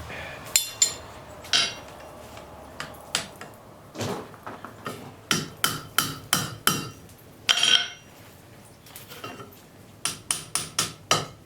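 Blacksmith's hammer striking a railroad spike on the anvil as its split ends are closed up: uneven ringing blows, a few single ones and then quick runs of about three a second in the middle and near the end.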